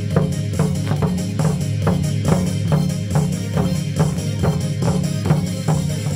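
Korean traditional drum-dance music: barrel drums (buk) beating an even pulse of about two and a half strikes a second over a sustained low tone.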